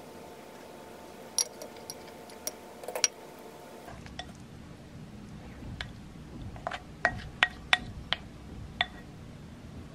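Wooden spatula clinking and scraping against a glass mixing bowl while egg salad is scraped out onto bread. A few light clinks at first, then a quicker run of clinks a few seconds later.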